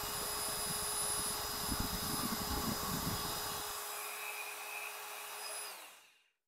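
Electric drill spinning the oil pump of a rebuilt Ford 302 V8 through a priming shaft, running steadily and then stopping about six seconds in. It is pre-lubing the engine, building about 62 psi of oil pressure.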